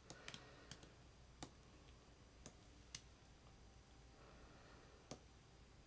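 Near silence: faint room tone broken by about eight small, sharp clicks at irregular intervals, the clearest about one and a half, three and five seconds in.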